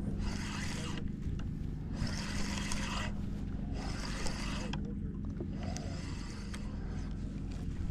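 Boat engine idling with a steady low hum, while water washes against the hull in hissy surges about every two seconds.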